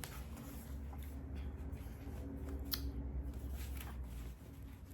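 Paper greeting cards being handled, with light rustling and one sharp click a little under three seconds in, over a steady low rumble that falls away near the end.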